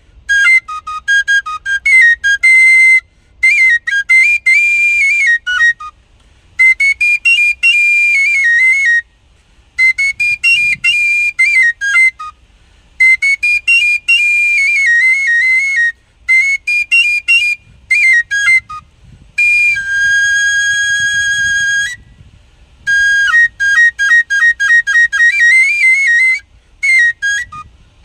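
Tabasco-style cane duct flute (flauta tabasqueña) played solo, an old son de baila tune: phrases of quick, high notes broken by short pauses, with one long held note about twenty seconds in.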